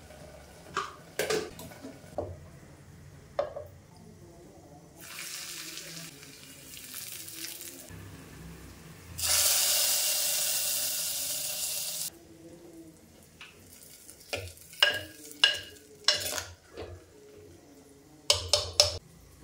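Hot tempering of dried red chillies and curry leaves poured into lentils and spinach in a clay pot: a loud sizzle about nine seconds in that fades over some three seconds, after a softer hiss a few seconds earlier. Then a steel spoon knocks against the clay pot as the dish is stirred, with a quick run of sharp knocks near the end.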